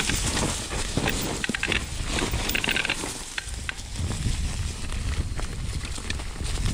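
Orbea Rise e-mountain bike riding a rough trail: tyres crunching over gravel and stones, with a constant scatter of clicks and rattles from the bike and a low wind rumble on the camera microphone.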